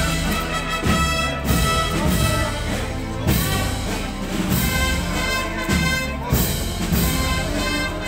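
Live wind band (banda de música) playing a slow processional march, with sustained brass chords and regular drum beats.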